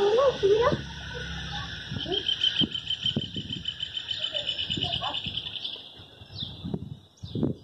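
Outdoor ambience: a steady high-pitched buzz with a fast pulsing trill in the middle and short bird chirps near the end. A vehicle passing at the start fades out within the first second.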